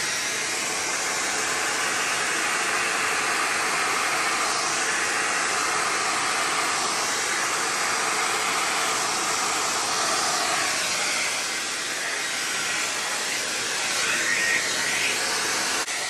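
Handheld hair dryer running steadily, blowing wet acrylic paint across a canvas in a Dutch pour.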